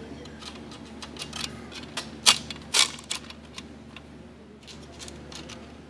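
Small metal parts being handled: a screw and thin aluminium baffle pieces clicking and tapping against each other, irregularly, with two sharper knocks a little past the middle. A steady low hum runs underneath.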